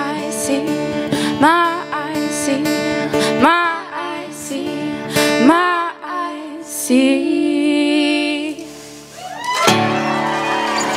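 Acoustic guitars strummed under two female voices singing the song's closing phrases, with sliding notes, ending on a long held note with vibrato. Near the end a final chord rings and the audience starts to applaud.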